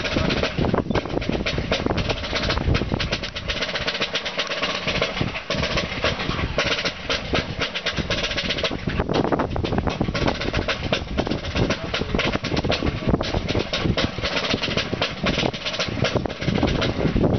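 A military side drum beating without a pause.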